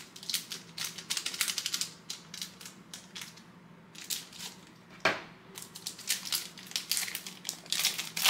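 Foil trading-card pack wrapper being torn open and crinkled: runs of quick crackles and clicks, with a louder crackle about five seconds in.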